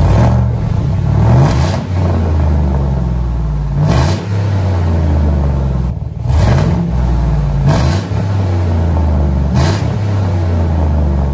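A 2015 Chevy Silverado engine blipped through a cat-delete exhaust with a single Purple Hornies muffler: about six quick revs, each falling back to a loud low idle. The owner thinks he hears a slight exhaust leak in the freshly welded system.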